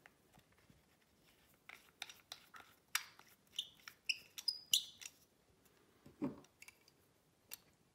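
Faint clicks, taps and short squeaky scrapes of a pneumatic sander's metal baffle and muffler housing being fitted back into the exhaust port and threaded on by hand. A soft knock about six seconds in as the adjustable wrench is picked up from the bench.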